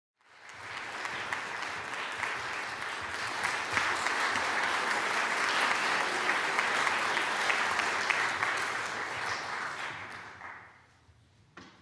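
Audience applauding in a concert hall; the clapping dies away near the end.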